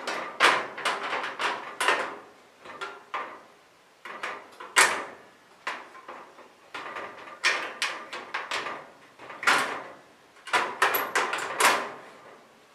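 Irregular knocks, clunks and scrapes from handling the kerosene heater's removable fuel tank and the hand siphon once filling has stopped.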